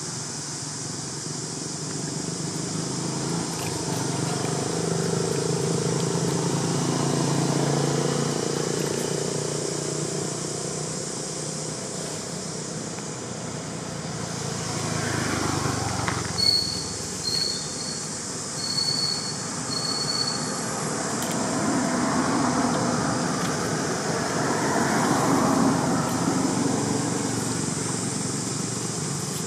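Background traffic noise, swelling and fading twice as vehicles pass. In the middle, four short high chirps come about a second apart.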